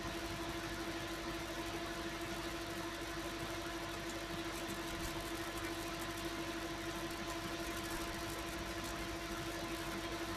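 Steady, unchanging hum with a constant hiss beneath it.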